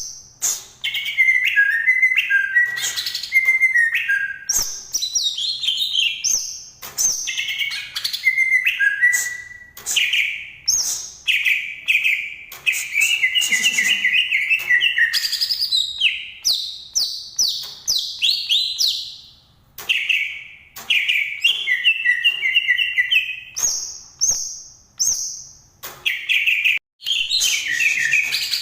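Cucak ijo (green leafbird) singing a long, varied song of fast chattering and whistled phrases, many notes sliding downward, with brief pauses between the phrases.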